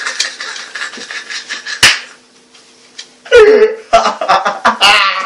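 Men laughing at a joke's punchline: breathy laughter, one sharp smack about two seconds in, a short lull, then louder bursts of laughter from about three seconds on.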